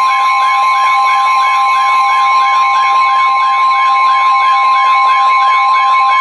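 Weather-radio alert tones: a loud, steady single tone near 1 kHz, NOAA Weather Radio's warning alarm tone, with a warbling alarm over it that rises and falls about three times a second.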